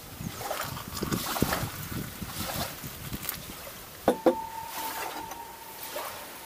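Hot water poured from a camping cook pot into a ceramic mug, splashing and gurgling for about three seconds. About four seconds in, two clinks of crockery set down on the table, the first leaving a thin ringing tone for about two seconds.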